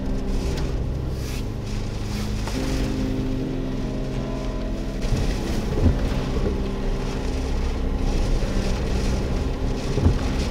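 Strong hurricane wind buffeting the microphone, with two hard gusts thumping on it about six seconds in and near the end, under a background music track of held chords.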